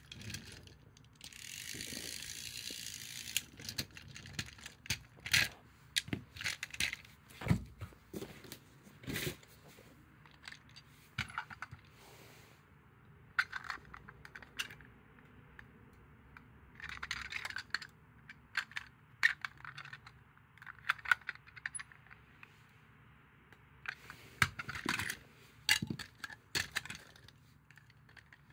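Hard plastic parts of a battery-powered toy streetcar clicking and clattering as it is handled, with its shell and battery cover snapped on and off: many separate sharp clicks and knocks, with a few short stretches of hiss between them.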